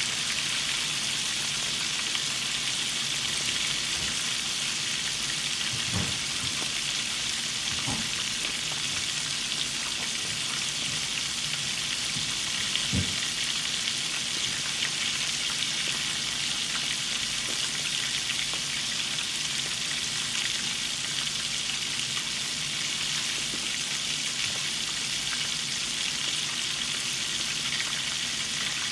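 Flour-coated chicken pieces deep-frying in hot oil in a stainless steel pan: a steady sizzle with fine crackling, and a few soft low knocks.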